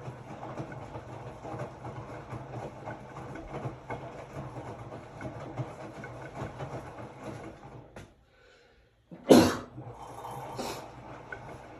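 Hotpoint-Ariston RSG 825 J washing machine running through its wash, a steady hum with a busy clatter. About eight seconds in it falls almost silent for a second, then a loud, sharp, short noise comes, with a weaker one a second later, before the running resumes.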